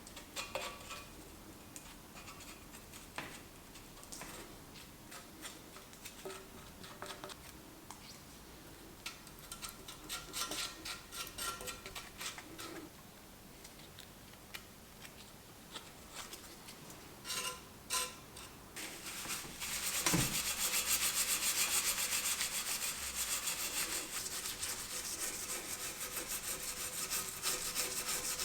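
Hand scrubbing of a bicycle frame while it is cleaned up. For the first two-thirds there are scattered clicks and handling noises; then a louder, fast back-and-forth rubbing starts and keeps going.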